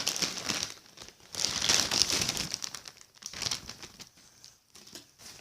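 Plastic toy packaging crinkling and rustling as it is unwrapped, in bursts that die down after about three seconds.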